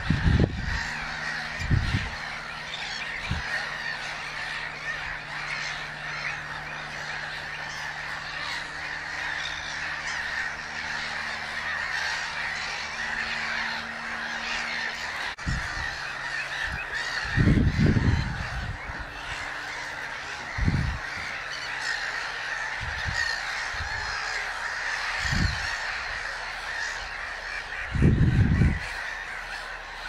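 Canada geese honking a few times, in short calls, with the loudest near the start, around the middle and near the end, over a steady background of birdsong.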